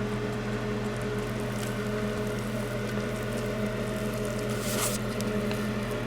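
Steady electrical hum of several even tones, with a few faint soft noises of thick flax dough being poured out of a bowl onto a dehydrator sheet.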